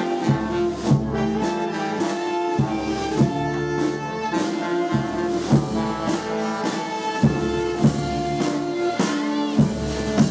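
A brass band with drums playing: held brass chords over steady drum beats.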